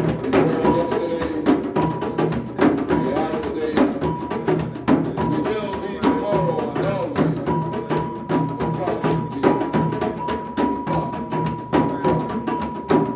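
Live percussion music: drums with sharp, wood-block-like strikes in a steady rhythm, and a thin steady high tone running underneath.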